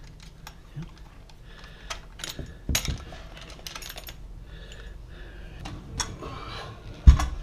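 Scattered small clicks and knocks as a garbage disposal's plastic discharge tube, its metal flange and a screwdriver are handled against the disposal housing. A louder knock comes about three seconds in and the loudest thump near the end.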